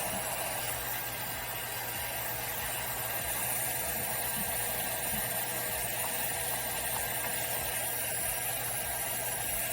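Heat gun blowing, a steady hiss, used to warm vinyl wrap film so the adhesive seals over air bubbles and slits.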